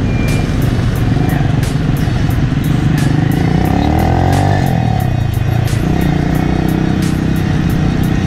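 Motorbike engine running while riding through dense scooter traffic. The engine pitch dips and then rises again about halfway through.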